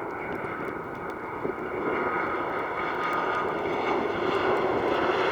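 Jet airliner engines running: a steady noise with a faint whine in it, growing slowly louder.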